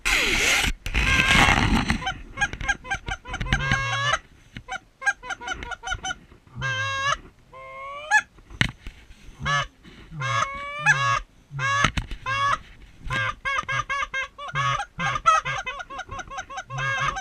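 Goose honking, many short calls in rapid succession with a cracking, two-note break, kept up throughout. A loud rushing noise covers the first two seconds.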